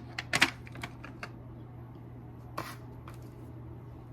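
Small items such as lipstick tubes being handled and packed into a purse: a few sharp clicks and taps early on, a brief rustle about two and a half seconds in, over a steady low hum.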